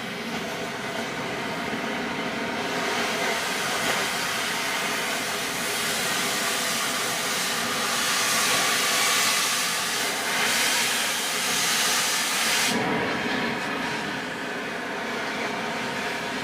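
A metal-cutting torch hissing steadily as it cuts through steel, louder and sharper from about three seconds in until it drops back near the end.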